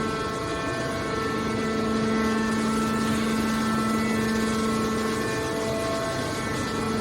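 Hydraulic can baler machine running with a steady droning hum.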